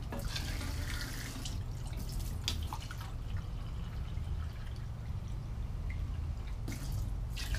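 Tap water running into a measuring cup and being poured into an Instant Pot's inner pot, in several spells of splashing and trickling, loudest near the start and again near the end. A steady low hum runs underneath.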